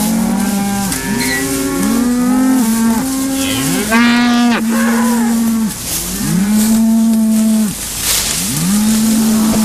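Several cattle mooing, long calls overlapping and following one another with hardly a gap. About four seconds in, one call sweeps sharply upward in pitch and is the loudest.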